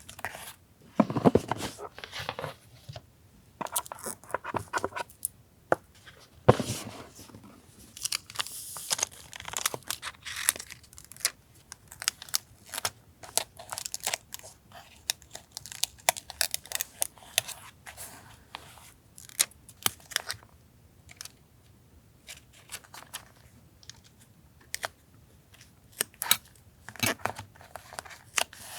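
Paper being torn and rustled during journal collage work, with many short, sharp clicks and taps at irregular intervals.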